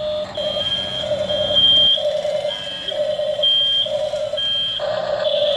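Electronic beeping from a toy RC excavator's built-in sound module, pulsing about once a second through its small speaker, then turning into a steady tone near the end.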